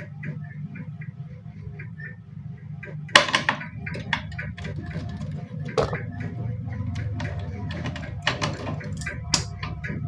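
Mini tube cutter being turned around a thin copper refrigerator pipe: quick ticking and clicking from the cutter wheel and rollers, with a few sharper clicks, until the pipe is cut through in the last few seconds. A steady low hum runs underneath.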